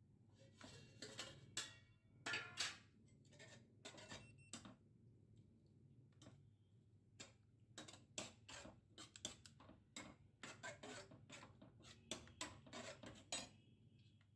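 Irregular light clicks and ticks, several a second at times and bunched more closely in the second half, over a faint low hum.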